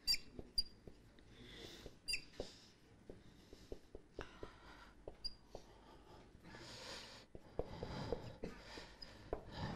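Marker pen writing on a whiteboard: a series of short scratchy strokes with brief high squeaks and light taps of the tip.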